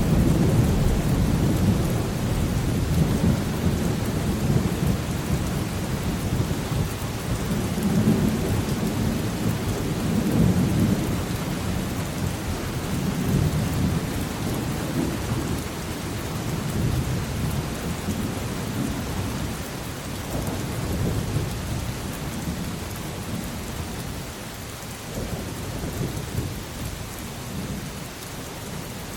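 Steady rain with rolling thunder. The low rumbles are loudest at the start and swell up again several times, dying away gradually.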